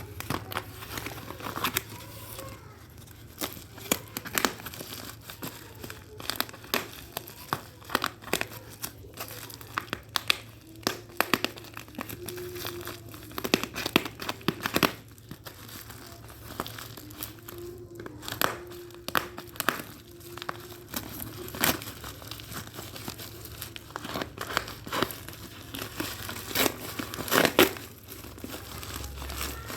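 Packaging being handled and opened: wrapping crinkling and tearing in many irregular sharp crackles.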